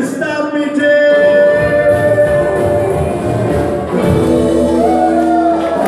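A live band plays an amplified song, with upright bass, acoustic and electric guitars and drums, in held notes and chords that go on without a break.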